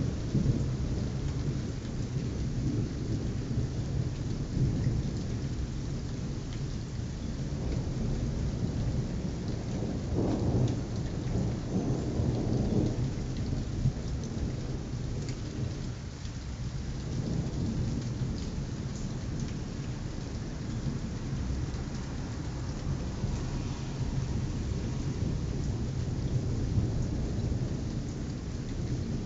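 Steady rain falling with low, rolling thunder, the rumble swelling about a third of the way in and again just past halfway, recorded on a mobile phone.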